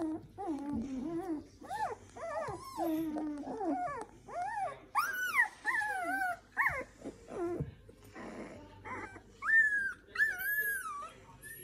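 Samoyed puppies whining and squealing: many short cries that rise and fall in pitch, overlapping one another, with a few longer, higher whines near the end.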